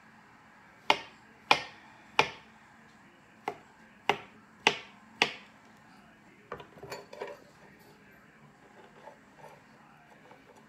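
A knife chopping down through blocks of kinetic sand and striking the wooden tabletop: seven sharp taps about half a second apart, then a brief patter of lighter taps.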